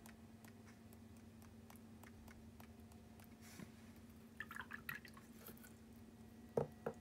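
Watercolour brush being swished and rinsed in a water cup: faint, light watery sloshing and dripping, with two short knocks near the end, over a low steady hum.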